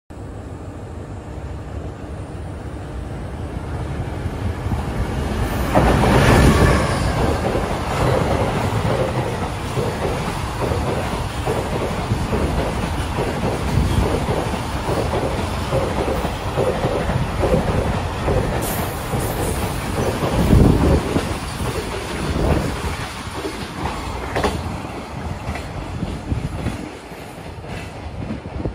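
Container freight train hauled by an EF510 electric locomotive passing through a station without stopping. The sound builds to its loudest about six seconds in, then the long string of container wagons goes by with a steady, regular clatter of wheels over the rail joints, easing off near the end.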